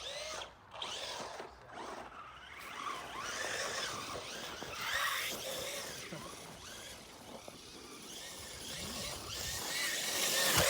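Traxxas Rustler 4x4 VXL's brushless motor and drivetrain whining, rising and falling in pitch again and again as the throttle is worked, with tyre hiss. It gets loudest near the end.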